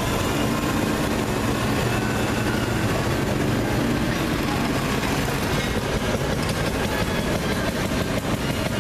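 Small engine of a rail motor car (track speeder) running as the car pulls away along the track. From about six seconds in, a rapid, even engine beat grows plainer.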